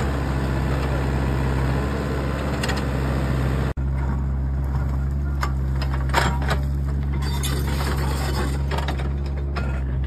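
Kubota mini excavator's diesel engine running steadily while it digs into stony, burnt hillside soil. From about four seconds in, the bucket scrapes and stones clatter and knock against it several times.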